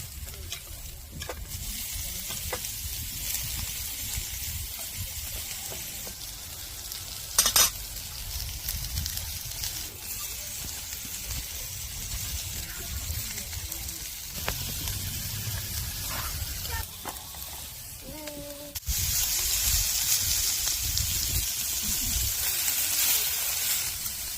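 Tomahawk steak sizzling on a grill over charcoal, a steady hiss. A single sharp clack about seven seconds in, and the sizzling is louder from about nineteen seconds on.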